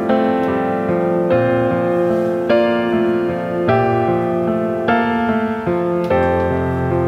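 Background piano music, a new chord struck a little over once a second.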